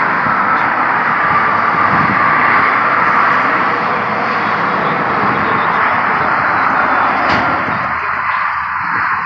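Steady rushing roar of road traffic passing, with a single short click about seven seconds in.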